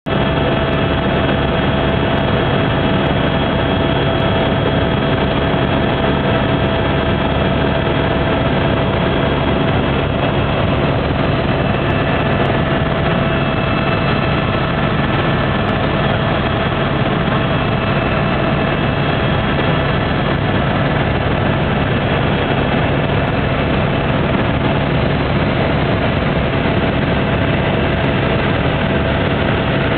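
Helicopter in flight heard from inside the cabin: a loud, unchanging drone of engine and rotor noise with a few steady whining tones laid over it.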